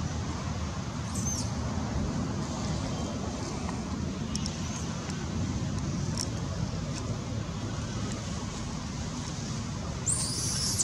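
Steady low rumble of distant road traffic, with a few faint high chirps. About ten seconds in, young long-tailed macaques start high-pitched squealing.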